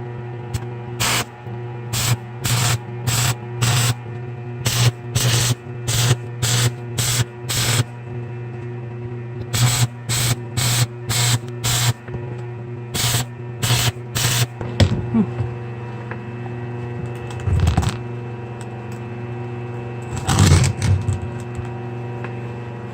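Electric arc welder tack-welding steel chain links: about twenty short crackling bursts, each under half a second, over the first fifteen seconds, with a steady electrical hum throughout. A few softer handling noises follow near the end.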